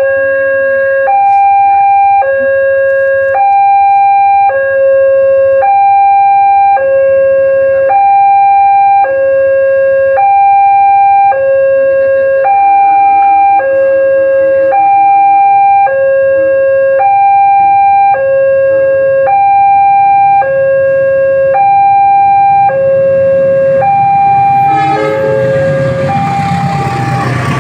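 Railway level-crossing warning siren alternating evenly between a high and a low tone, sounding the alarm for an approaching train. Near the end the low tone drops out and a rumbling noise builds underneath.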